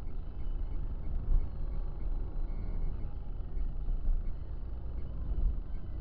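Steady low rumble of a car's engine and tyres heard from inside the cabin through a dashcam microphone while driving, with one brief louder thump about a second and a half in.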